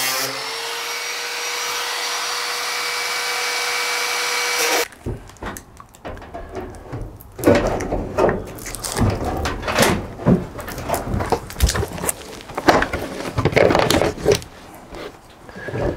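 Angle grinder cutting through the sheet-steel roof panel of a van, a steady high whine for about five seconds that cuts off abruptly. After it, irregular knocks, taps and rattles as the cut-out metal section is handled and pushed out.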